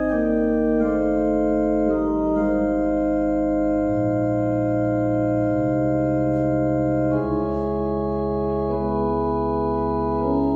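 Organ music: slow, sustained chords with the bass moving to a new note about four seconds in and again about seven seconds in.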